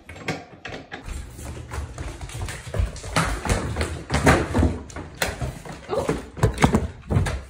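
A dog pawing at a plastic food bowl and moving about on a hardwood floor: irregular taps, clicks and knocks, loudest a little after the middle and again near the end.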